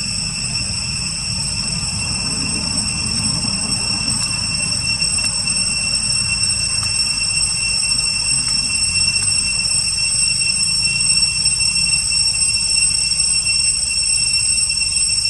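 A steady high-pitched whine with overtones, unchanging throughout, over a low rumble.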